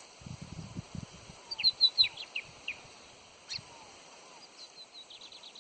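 A small bird calling: a burst of sharp, high chirps about a second and a half in, then a fast high trill near the end, with faint, soft descending whistles repeating behind. Low rumbling knocks in the first second.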